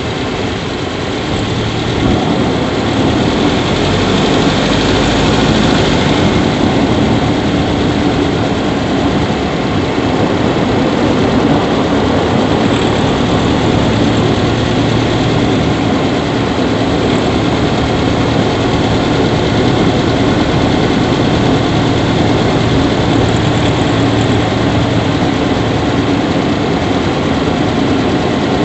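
Subaru Levorg 1.6GT-S engine bay with the turbocharged flat-four idling steadily. The owner reports an unexplained 'kyuri' squeak from the engine bay that grows louder as the engine runs longer.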